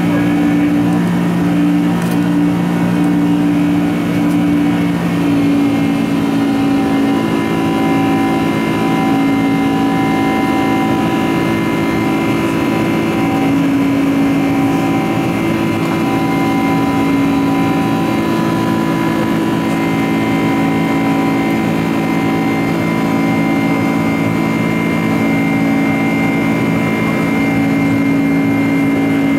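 Boeing 747-400's GE CF6-80C2 turbofan engines heard from inside the passenger cabin during the climb after takeoff: a loud, steady jet drone with several humming tones over a rushing roar. The lower hum shifts slightly lower about five seconds in.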